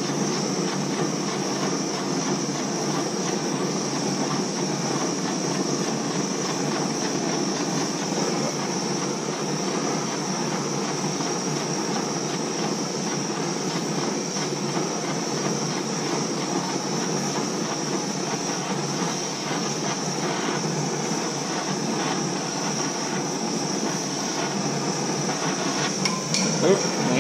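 Gas torch flame hissing steadily as it heats steel tubing for bending, with a few sharper knocks near the end.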